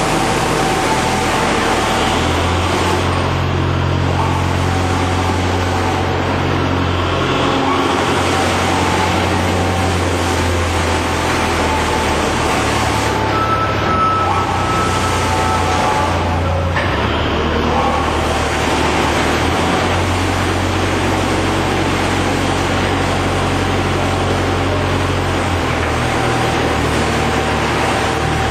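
USM 30 universal scrap shredder running loud and steady during a demonstration of shredding bearing steel turnings, with a low steady hum under a dense mechanical din.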